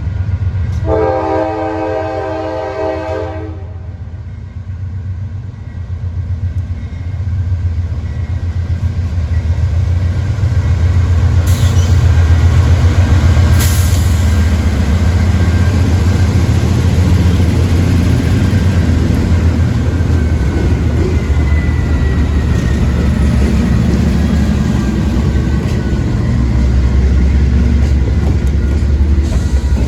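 Train horn sounds one blast of about three seconds, starting about a second in. A train's deep, steady rumble then builds and carries on as the train passes, with a couple of sharp clicks along the way.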